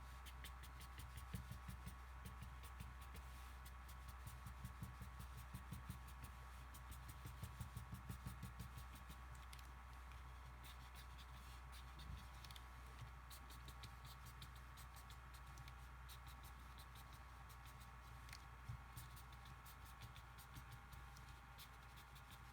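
Faint scratching of a black felt-tip marker drawing short fur strokes on paper, in irregular quick bursts that are busiest in the first half, over a steady low hum.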